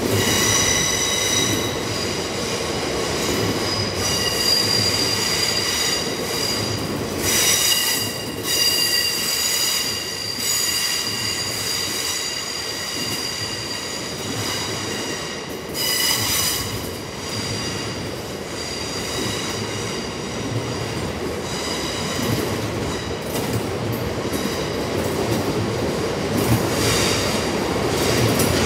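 Loaded GB Railfreight bogie hopper wagons rolling past on curved track, wheels rumbling on the rails under a steady high, multi-toned wheel squeal. The squeal swells briefly louder twice, about a quarter of the way in and just past halfway.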